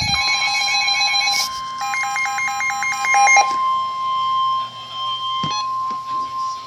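Emergency Alert System tones from two alerts overlapping: a buzzy alert tone cuts off about a second and a half in, while a steady high single-pitch warning tone starts right away and holds. A brief burst of warbling digital header data plays between about two and three and a half seconds in, and there is a single click later on.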